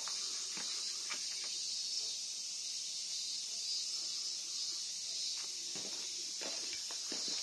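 A steady, high-pitched chorus of summer insects droning without a break, with a few faint footstep scuffs, more of them near the end.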